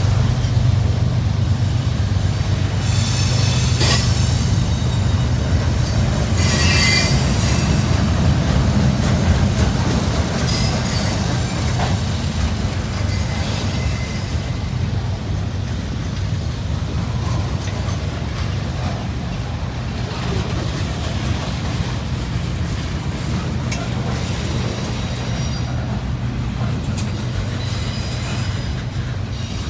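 Freight train rolling past with a steady low rumble of wheels on rail. High-pitched wheel squeals come and go several times, mostly in the first eight seconds and again near the end.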